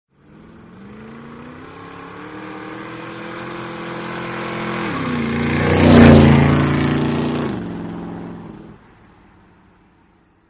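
A motorcycle engine riding up and passing close by: it grows louder as the bike approaches and is loudest about six seconds in as it goes past. The engine note then drops in pitch and fades away by about nine seconds.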